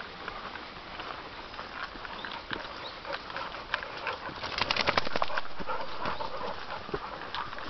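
Footsteps and a hunting dog's paws scuffing and crunching on a leaf-littered forest trail, with scattered clicks. About four and a half seconds in, a short, louder burst of rapid rustling and scratching as the dog comes right up close.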